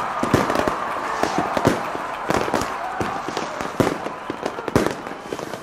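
Aerial fireworks going off: a rapid, irregular series of bangs and pops.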